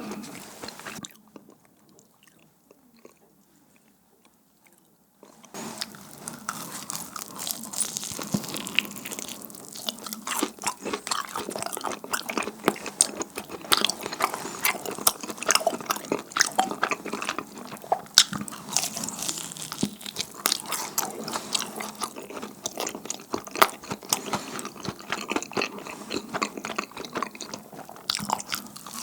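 Close-miked biting and chewing of sticky, chewy pan-fried dumplings (mandu hotteok): a dense run of quick wet clicks and smacks. A lull of near silence comes about a second in and lasts about four seconds, then the chewing goes on steadily.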